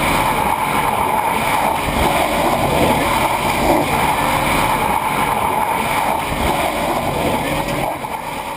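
Tyres of an electric race car spinning in a burnout, a steady rushing, hissing noise that fades out near the end.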